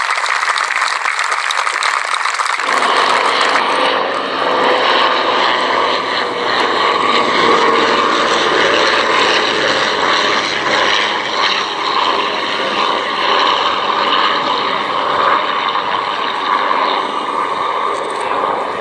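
Crowd applause, cut off suddenly about two and a half seconds in by a propeller aircraft's engine running steadily.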